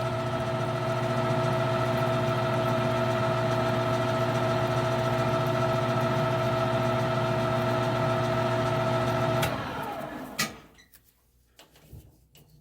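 Lathe motor running at a steady hum while a 3/8-16 die in a tailstock die holder cuts the thread on the screw blank. About nine and a half seconds in the motor is switched off and winds down with a falling hum, followed by a single click.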